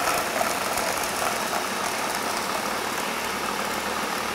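A Ninja food processor/blender running at full speed, its stacked blades pulverizing pork rinds into fine crumbs. It makes a steady, loud whir that eases off slightly toward the end.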